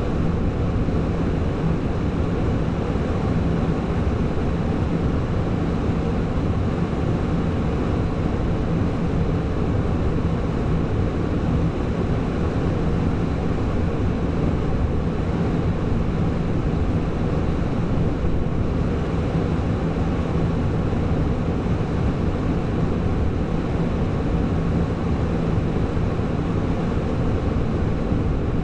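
Heavy diesel engine running steadily at an even pitch, a constant low drone.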